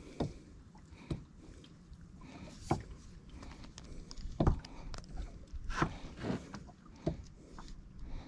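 Water slapping and knocking against the hull of a small boat: seven or so irregular knocks over a low, steady wash.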